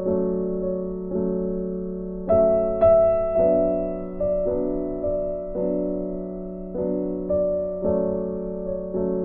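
Slow, gentle background music played on a keyboard, with notes struck about once a second that ring and die away over a steady low held note.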